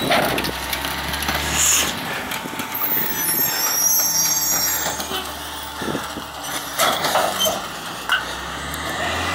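Peterbilt 348 CNG garbage truck with a McNeilus rear-loader body idling at the curb with a low steady hum, while trash is loaded into its rear hopper. Several sudden clatters and hisses come at the start, about two seconds in and about seven seconds in, with a faint high squeal in between.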